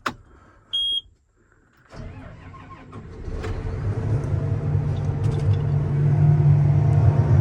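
One short electronic beep, then a John Deere combine's diesel engine starting and building over a couple of seconds to a steady, loud run.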